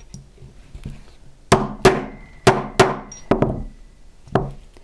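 A brass mallet striking a steel dapping punch in a steel dapping block: a run of about six sharp metallic strikes, each with a short ring. The strikes dome a small copper disc into a bead cap.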